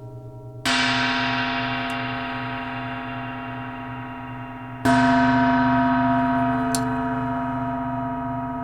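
A gong struck twice with ball-headed mallets, about four seconds apart, each stroke ringing out with many overtones and slowly fading; the strokes compare a poly-ball mallet with a medium rubber-ball one.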